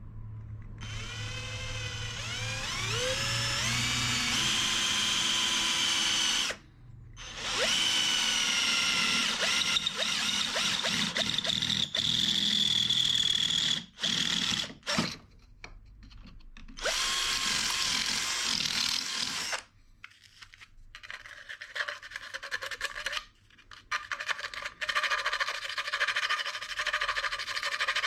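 Cordless drill boring through the metal tube of an old shock absorber. The motor whines up in pitch as it starts, then runs steadily under load, stopping briefly several times. The last several seconds are rougher and more broken up.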